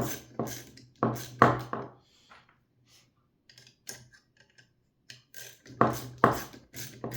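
Metal clinks and clicks of a wrench tightening the M6 bolt and nut that hold a tool hanger to a stapler's track. There is a cluster of sharp clinks, then a stretch of faint ticks, then another cluster of clinks near the end.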